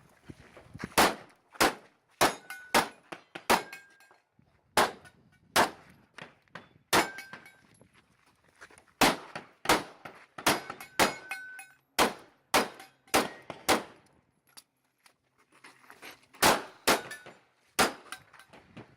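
Pistol shots fired in quick, uneven strings, about two dozen in all, with short pauses between groups. Some are followed by a brief ringing tone, as of hits on steel targets.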